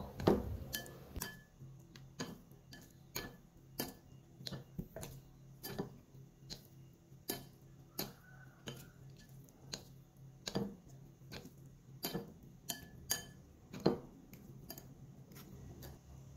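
Metal spoon and chopsticks clinking against a ceramic bowl while mixing instant noodles: light, irregular clinks, about one or two a second, with a few louder knocks.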